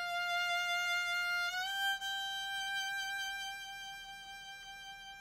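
Violin bowing one long held note, then sliding up about a whole step about a second and a half in to a second long note that slowly fades.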